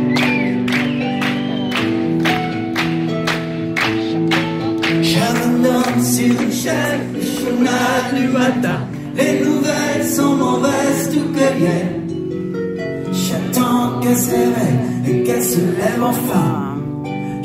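Live band music led by harp and guitars: a steady plucked pulse of about three notes a second at first, then a voice singing a melody over held chords from about five seconds in.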